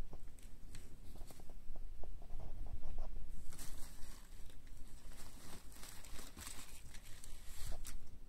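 Thin plastic sheeting crinkling and rustling as a cat pushes against it. There are a few soft ticks at first, then a busy run of crackles in the second half that stops just before the end.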